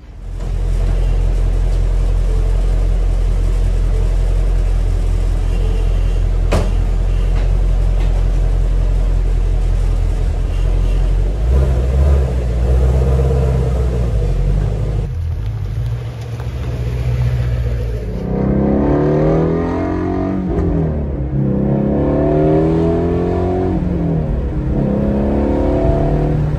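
Shelby GT350's 5.2-litre flat-plane-crank V8 idling with a steady low hum. After cuts, it is accelerating while driving, heard from inside the cabin, its pitch climbing and then dropping with each gear change.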